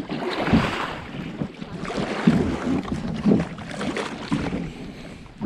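Water sloshing and splashing around a moving kayak, with wind buffeting the microphone and a few irregular knocks.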